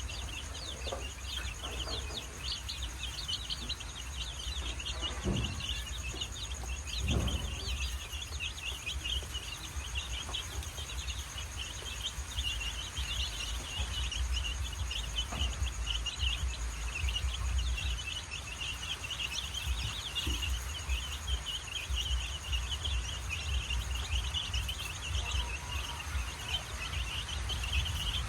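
A crowd of chicks peeping continuously, many rapid high chirps overlapping, over a steady low rumble.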